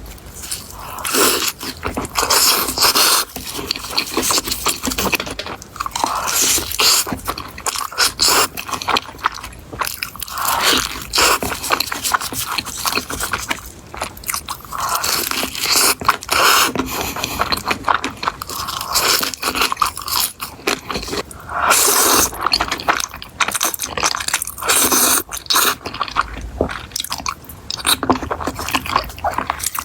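A person biting and chewing crunchy food close to the microphone. Dense crackling crunches come in louder bursts every second or two.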